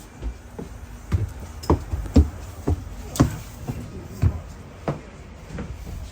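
Irregular knocks and thumps, about a dozen in six seconds and uneven in strength, over a steady low rumble.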